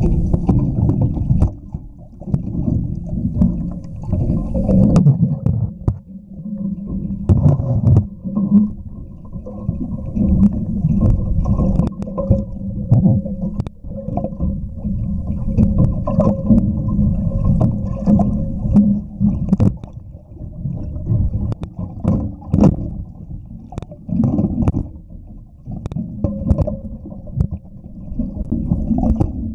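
Underwater sound through a camera's housing: muffled rumbling and sloshing of moving water with a steady low hum, broken by occasional short knocks.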